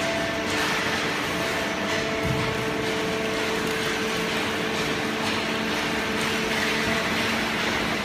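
Automatic horizontal waste-paper baler with its chain feed conveyor running: a steady machine drone with a few held humming tones.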